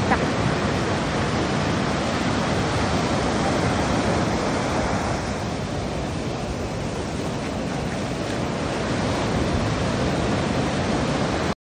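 Ocean surf breaking on a sandy beach at night: a steady rush of waves that dips a little in the middle and cuts off suddenly near the end.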